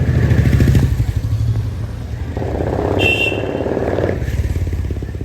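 A motor vehicle engine running, a low pulsing rumble loudest in the first second. From about two and a half seconds in, a buzzier, higher rasp joins it for about a second and a half, with a brief high tone near three seconds in.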